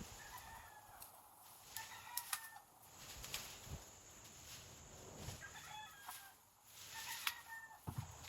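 Faint animal calls, likely from fowl: short pitched calls repeated four times, with a few sharp clicks among them.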